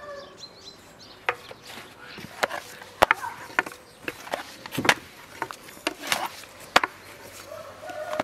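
A thin wooden rolling pin knocking and tapping on a floured wooden board as a sheet of flatbread dough is rolled out and flipped over the pin. Irregular sharp knocks, the loudest about three, five and seven seconds in.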